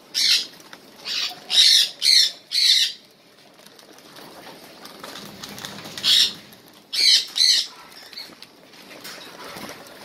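Cockatiels giving short, harsh, high squawking calls: a quick run of five in the first three seconds, then three more after a pause.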